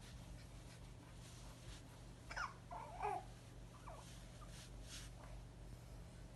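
Six-week-old baby hiccuping: two short, squeaky hiccups about two and three seconds in, then a fainter one.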